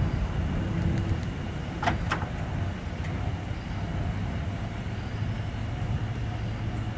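GMC Sierra 3500 dually pickup's engine idling steadily, with two sharp clicks close together about two seconds in as the tailgate is released and lowered.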